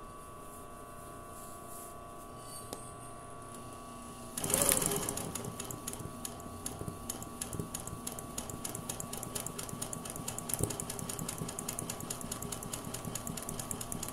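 Sewing machine doing free-motion embroidery on hooped fabric: after a faint steady hum, it starts up about four seconds in and runs with a rapid, even needle clatter.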